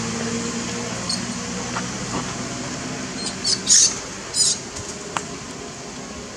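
A young macaque squealing in a few short, high-pitched squeaks, the loudest cluster a little under four seconds in, over a faint low hum that fades away.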